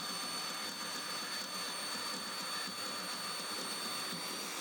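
A power tool running steadily while working steel: an even, hissy machine noise with faint high whine tones over it.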